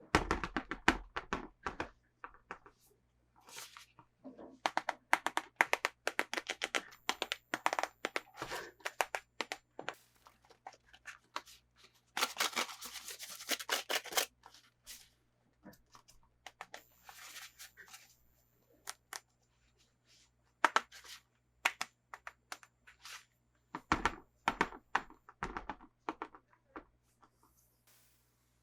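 Toy packaging being handled and opened: close-up crinkling and clicking of plastic and cardboard, with a longer tearing sound about twelve seconds in and a few knocks.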